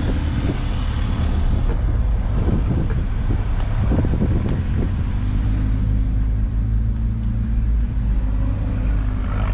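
A car engine running steadily with a low drone.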